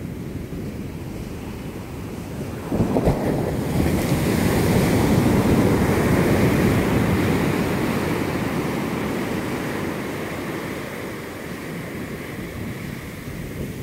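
Ocean surf breaking on a sandy beach: a wave crashes about three seconds in, its wash loudest for the next few seconds, then slowly fading as the foam runs up the sand.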